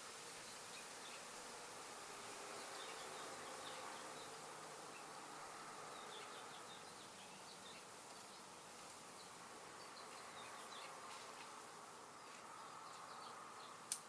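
Faint buzzing of flying insects, with a lower buzz passing by for a few seconds in the first half, over light high chirps. A single sharp click sounds just before the end.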